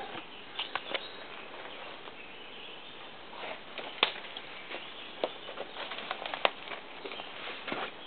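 Footsteps through brush: scattered, irregular light cracks and rustles of twigs and forest litter underfoot.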